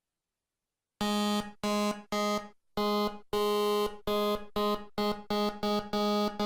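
Software synthesizer in LMMS playing about eleven short buzzy notes on one unchanging pitch, each starting sharply and fading, coming faster toward the end after a second of silence.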